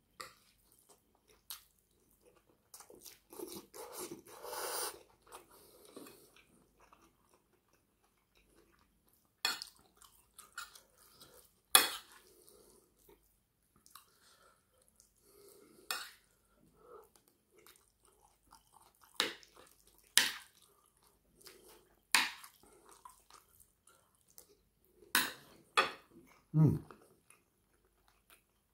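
Metal fork clicking and scraping on a plate as curry and rice are picked up, about a dozen sharp separate clicks spread out, with chewing sounds between them.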